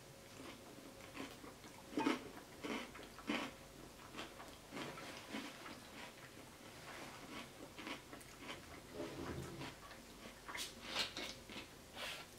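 Close-miked chewing of a mouthful of creamy bowtie pasta salad: soft, irregular wet mouth clicks and smacks. Near the end comes a denser run of sharper crackles as a plastic soda bottle is picked up.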